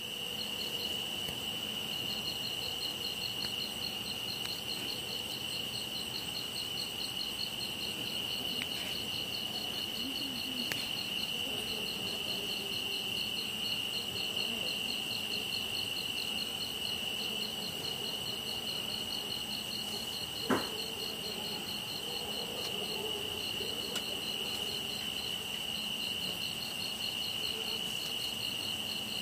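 Crickets calling at night: one steady high trill with a second, fast pulsing chirp above it. A single sharp click comes about two-thirds of the way through.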